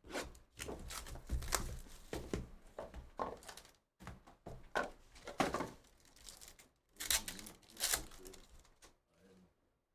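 Trading card packs being torn open and handled: plastic pack wrappers ripping and crinkling, and cards rustling, in a run of short rips and crinkles that stops about a second before the end.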